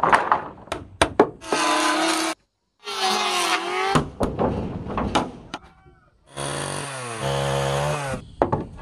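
A few sharp knocks on wood, then a power tool whining in three short runs. The pitch of the second and third runs dips and recovers as the tool works the wood.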